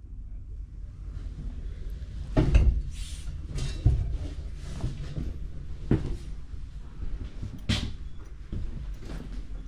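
A few knocks and thumps of a cabinet or door being handled, over a low rumble, the loudest about two and a half seconds in.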